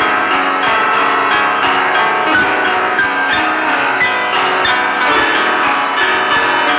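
Loud, dense music of many bell-like pitched notes struck in quick succession, with no pause.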